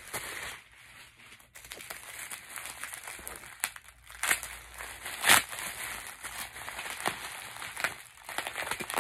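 Bubble-wrap packaging crinkling and rustling as it is handled and opened, with irregular sharp crackles; the loudest crackle comes about five seconds in.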